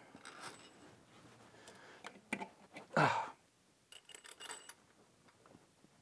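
Hand tools and metal engine parts being handled in close quarters: scattered small metal clicks and clinks, a brief louder sound falling in pitch about three seconds in, and a quick run of bright metallic clinks right after it.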